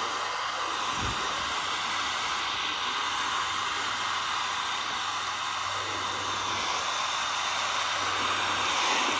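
Steady static hiss with a faint low hum underneath.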